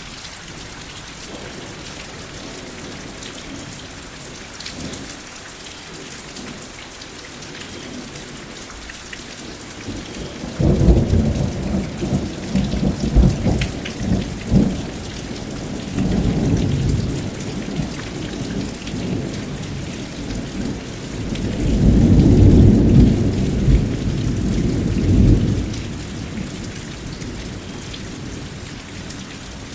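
Steady rain falling, with a thunderclap breaking in suddenly about a third of the way through and crackling on for several seconds, then a second, deeper roll of thunder swelling and fading near the end.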